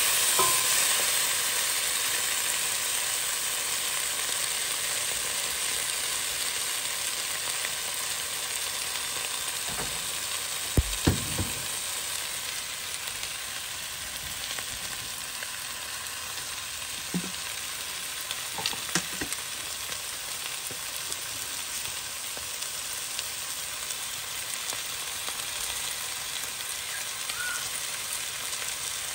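Chicken and chopped vegetables sizzling as they sauté in a pot, a steady hiss that slowly fades. A few sharp clacks of the wooden spoon against the pot come about a third of the way in and again past halfway.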